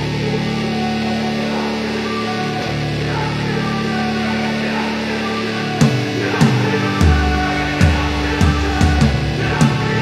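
Background music: held chords at first, then regular sharp beats come in about six seconds in.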